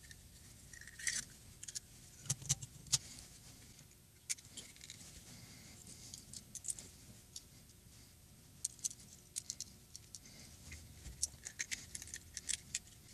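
Irregular small clicks and light metallic clinks of bare Glock 27 pistol parts (pins, springs, slide parts) being picked up and set down by hand on a towel, coming more often in the last few seconds.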